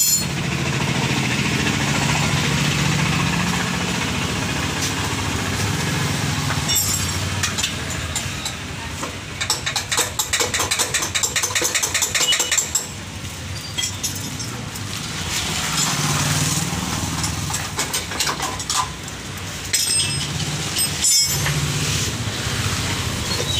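Metallic clicking and clinking of hand tools on a motorcycle's rear wheel as the axle is worked loose and the wheel removed, with a fast run of clicks in the middle. An engine hums in the background for the first several seconds and again later on.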